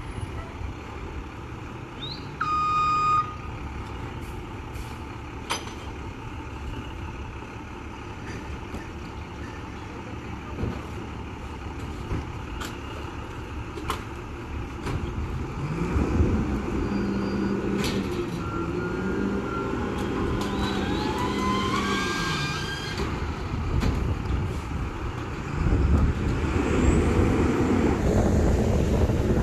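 Rear-loader garbage truck's diesel engine idling. Midway it rises into a steady higher drone for several seconds as the packer cycles, with squealing from the packer mechanism and scattered clanks. A louder engine rumble comes near the end.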